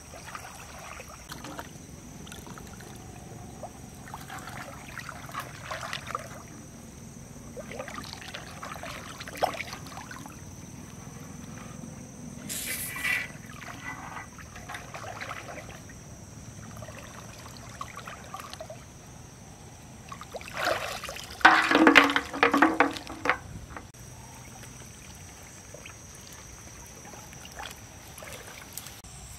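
Shallow pond water sloshing and splashing as a person wades and moves about in a round tub boat, in irregular bursts, with a louder spell of splashing about three-quarters of the way through.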